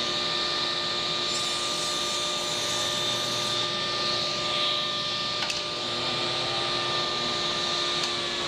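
Ridgid table saw running at a steady whine while a length of trim stock is fed through the blade along the fence, the cut adding a higher hiss from about one to three and a half seconds in. Near the end the motor's pitch begins to drop as it is switched off and winds down.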